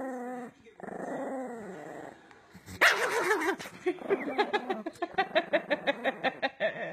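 Small Chihuahua-type dog snarling and growling, then, from about three seconds in, breaking into a fast run of short growling yaps, several a second: an angry warning at being approached.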